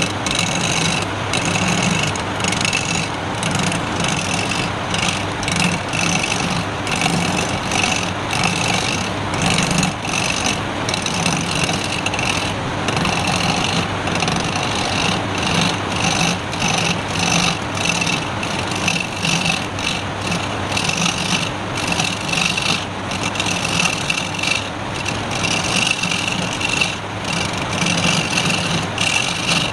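Wood lathe running while a turning tool cuts the spinning wood: a steady motor hum under repeated scraping strokes that come and go every second or so.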